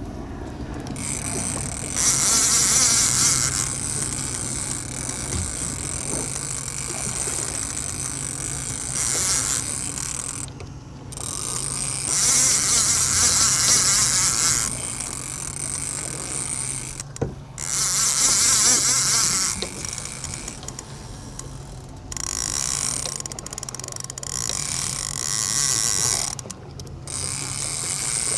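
Daiwa casting reel ratcheting in repeated spells of a few seconds each while a hooked amberjack is fought: the drag gives line as the fish runs, and line is wound back between runs. A steady low hum runs underneath.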